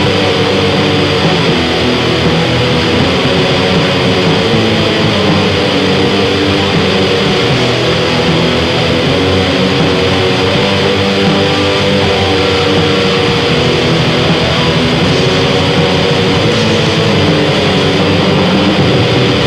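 Raw black metal: heavily distorted electric guitars and drums playing as a dense, steady, unbroken wall of sound.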